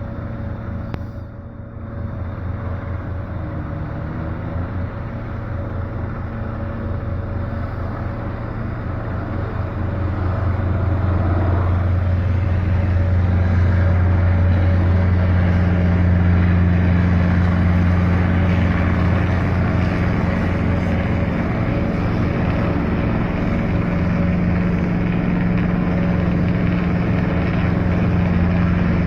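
Helicopter flying, its rotor beating steadily with a low engine and turbine tone, growing louder about a third of the way in and staying loud.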